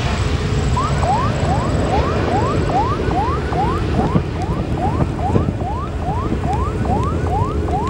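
Boeing 737 jet engines rumbling steadily as the airliner climbs away after takeoff. Over it a short rising chirp repeats about three times a second, pausing briefly near the start.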